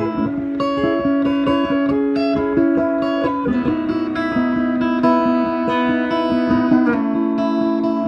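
Custom Anu flame-maple and mahogany electric guitar played through a loudspeaker: quickly picked notes over ringing, sustained chords, the harmony shifting about three and a half and seven seconds in.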